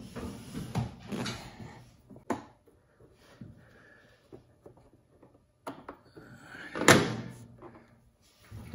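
Hands and a small tool working at a motorcycle's front belly-pan bracket: scattered clunks, taps and rustling, with a sharp click a couple of seconds in and the loudest knock near the end.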